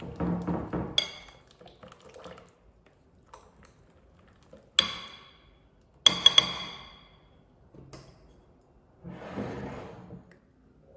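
Kitchen utensils knocking against dishes: a few sharp clinks that ring on briefly, one quick cluster of them, then a softer stretch of scraping or handling noise near the end.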